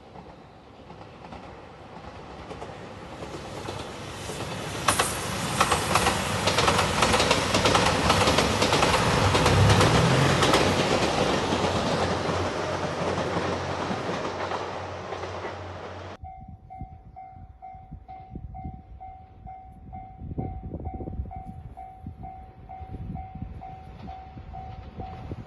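JR Shikoku 2700 series diesel multiple unit, a four-car limited express, passing close by over a level crossing: a rush of wheels and engines that builds, peaks and fades. After an abrupt cut about two-thirds through, the level-crossing warning bell is heard clearly as an even, repeating ding.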